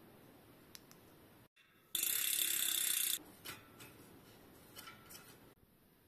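A loud mechanical ratcheting buzz for a little over a second, followed by a few light metallic clicks and scrapes.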